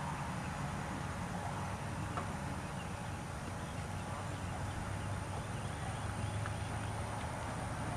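Steady low hum and hiss of a large indoor arena, with faint hoofbeats of a horse trotting on soft arena footing.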